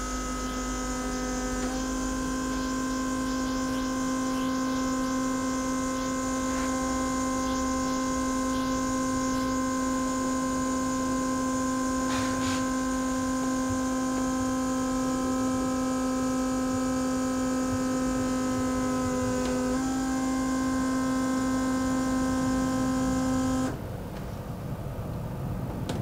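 Electric fuel pump running steadily with a high electric hum while priming a Land Rover Td5's fuel system with diesel, so the injectors can be checked for leaking seals. It shifts slightly in pitch a couple of seconds in and again later, then cuts off suddenly near the end.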